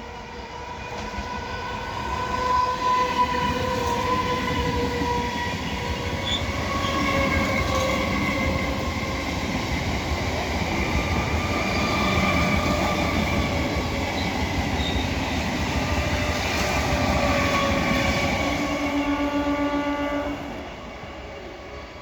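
A train running past close by, its wheels and carriages rumbling, while its horn sounds long, held notes. The rumble builds over the first couple of seconds and drops away suddenly near the end.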